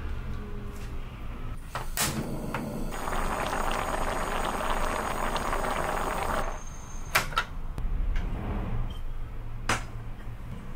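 Pot of miso soup simmering with a crackling bubble for a few seconds, followed by several sharp knocks of cookware as a ceramic donabe pot is set down on the gas stove.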